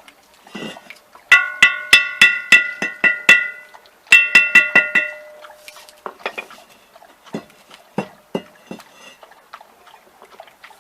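Rapid ringing clinks of a hard object being struck, about four a second, in two runs of a second or two each, followed by scattered softer knocks and clatter.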